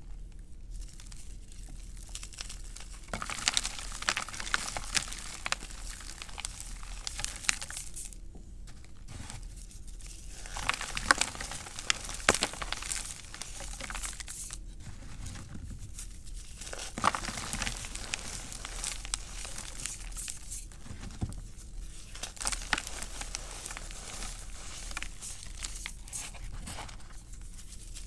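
Hands crushing and crumbling cornstarch and gym chalk balls and thin slabs into powder, a crispy, crunchy crackling that comes in bursts with short pauses, starting a few seconds in.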